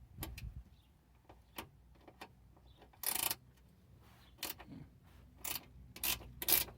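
Icon ratcheting wrench clicking in short, irregular bursts as it is swung back and forth, working a fastener loose.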